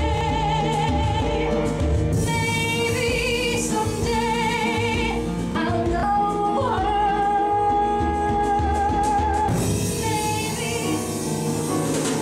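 A woman singing long held notes with a wide vibrato over instrumental accompaniment, one note held steady for a couple of seconds in the middle.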